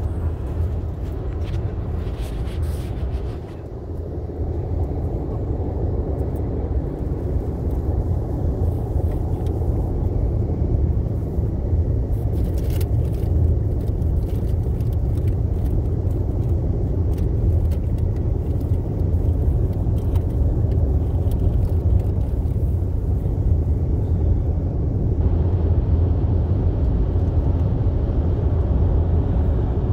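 A car driving at highway speed, heard from inside the cabin: a steady low rumble of engine and road noise, briefly quieter about three and a half seconds in.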